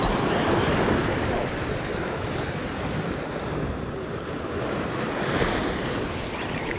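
Sea waves washing against a rocky shore, with wind buffeting the microphone.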